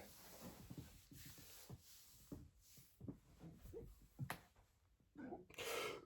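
Near silence: faint scattered small clicks and ticks, with a soft short hiss a little before the end.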